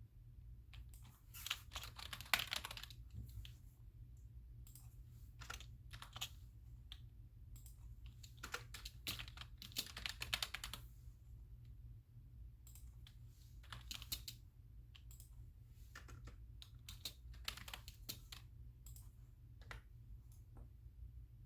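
Typing on a computer keyboard in two quick runs of keystrokes, about a second in and again around eight to eleven seconds in, with scattered single key clicks in between.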